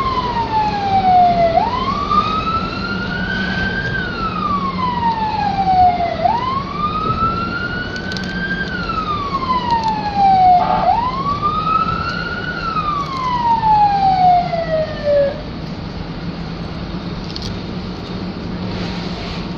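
Emergency siren sounding a slow wail, its pitch rising and falling about every four and a half seconds, heard from inside a pickup truck's cab over a steady engine and road drone. The siren stops about fifteen seconds in, leaving only the engine and road noise.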